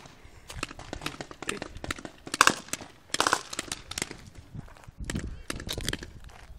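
Footsteps of a person walking over dry ground and concrete, with knocks from the hand-held camera, in an uneven run of short taps and two louder bumps a few seconds in.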